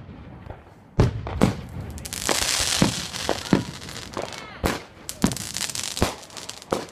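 Fireworks going off: a string of sharp bangs, about nine in seven seconds, with a stretch of hissing crackle between two and three seconds in.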